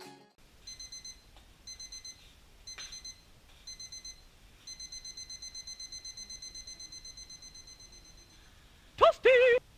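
Digital alarm clock beeping: four groups of quick high beeps about a second apart, then a fast unbroken run of beeps that fades out about a second before the end. Just before the end comes a short pitched sound that slides up and down.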